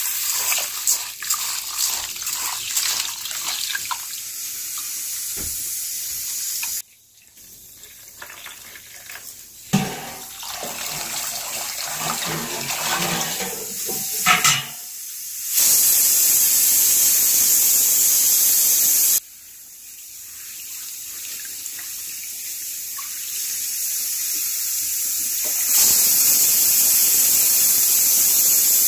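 Rice being washed by hand in a metal pot: water pours onto the raw grains, hands swish and rub the rice in the water, and the cloudy rinse water is poured off in a steady stream into a plastic basin. The steady pouring stretches are the loudest.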